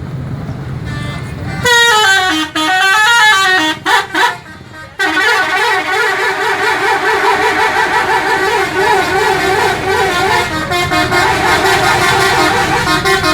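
Telolet horn of a Cipta Kurnia tour bus: a multi-tone musical air horn playing a warbling, shifting melody of several notes at once. It starts about two seconds in, breaks off briefly around four to five seconds, then sounds continuously for about eight seconds more, over a low engine rumble.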